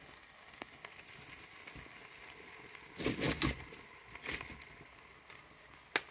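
Chopped beef steak boiling and sizzling in its own juice over the fire: a faint steady hiss with scattered crackles and pops, a cluster of them about three seconds in and a sharp pop near the end.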